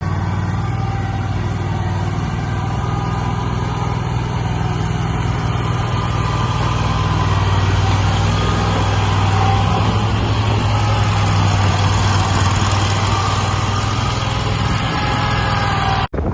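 A motor vehicle driving at steady speed: a continuous engine and road drone with a strong low hum, cutting off suddenly near the end.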